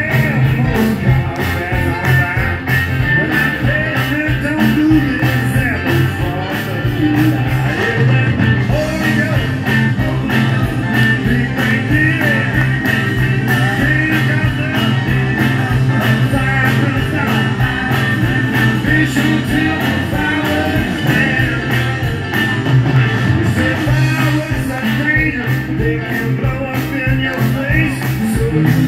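Live blues-rock band playing through a PA: electric guitars over a steady beat, with a man singing.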